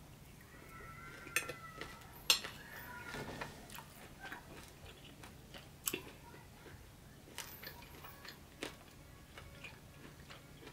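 Close-miked chewing of a mouthful of well-done steak, with many short, sharp mouth clicks scattered throughout.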